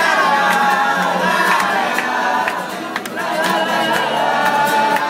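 Live singing to a strummed acoustic guitar, many voices singing along together.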